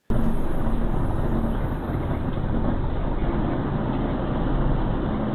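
Steady outdoor rumble and hiss from a doorbell camera's microphone, cutting in suddenly at the start and holding level throughout.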